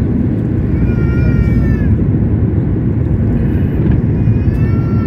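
Steady low rumble inside a jet airliner's cabin as it rolls at speed along a waterlogged runway, spray flying off the wheels and engines. Over it, twice, a short high-pitched wavering cry rises and then dips, about a second in and again near the end.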